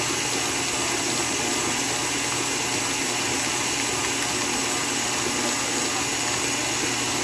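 KitchenAid Artisan stand mixer running steadily at an even pitch, its beater churning thick almond cream in the steel bowl.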